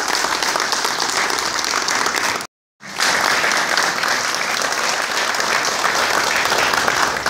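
Audience applauding steadily, with many hands clapping at once. The applause breaks off into silence for about half a second roughly two and a half seconds in, then resumes at the same level.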